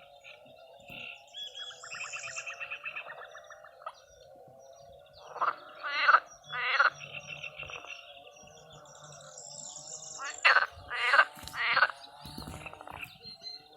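A chorus of frogs calling: a steady background of calls with quick trills early on and two bouts of loud croaks, a third of the way in and again near the end.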